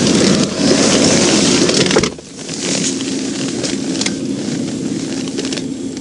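Loud rush of wind and passing traffic on a body-worn microphone, cut off suddenly by a thud about two seconds in, like a car door shutting. After it comes a quieter steady hum with scattered clicks, as from inside a closed patrol car.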